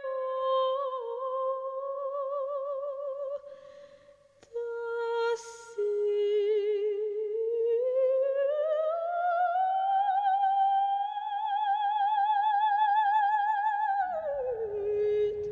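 Operatic soprano voice singing long held notes with wide vibrato. Partway through, the pitch slides slowly up to a high note and holds it, then drops back down near the end as a low electronic bass comes in.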